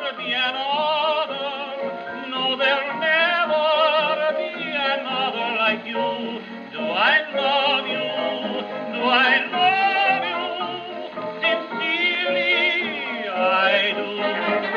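1929 dance-orchestra record playing on a 1925 Victor Credenza, a wind-up acoustic horn phonograph, the sound cut off above the high treble. The melody lines waver with heavy vibrato, with a quick rising glide about seven seconds in.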